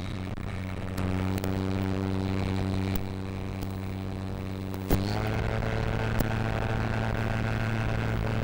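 Electric motor and propeller of an RC Spitfire model running at high power through the takeoff and climb, picked up by the onboard camera as a steady buzzing drone. The tone grows louder about a second in and steps up slightly about five seconds in, with a few sharp clicks.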